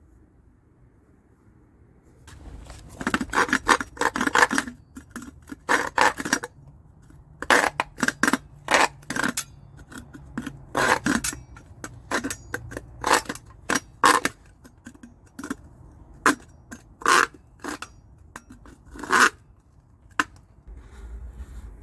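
A long irregular run of short scrapes and knocks, some in quick clusters, starting about two seconds in and stopping shortly before the end, over a faint low rumble.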